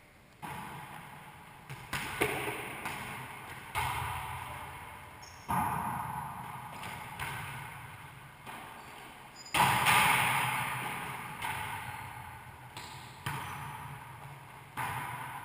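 A wallyball (volleyball) being struck by players' hands and rebounding off the walls of a racquetball court: about ten sudden smacks, each echoing and dying away in the enclosed court.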